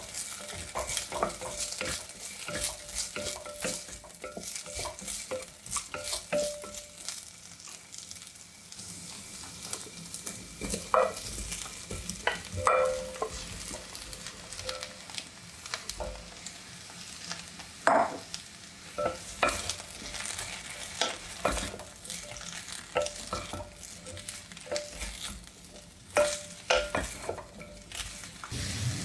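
Chopped potato and cauliflower pieces dropped into an amber glass pot, knocking and clinking against the glass with short ringing tones. A steady sizzle comes from the hot pot underneath.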